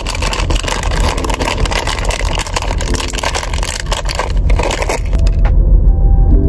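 Plastic snack wrapper crinkling and crackling as it is torn open by hand, stopping about five seconds in. A steady low rumble runs underneath and is louder near the end.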